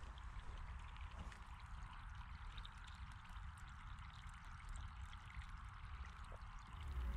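Faint, steady trickle of water running into a small concrete ditch culvert, with low wind rumble on the microphone.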